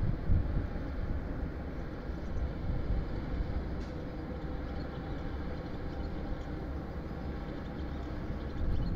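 A diesel pushboat under way on the river, heard across the water as a steady low rumble with a faint steady hum through it.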